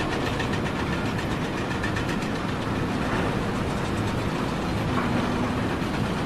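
A loud, steady engine running, with a rough, noisy sound.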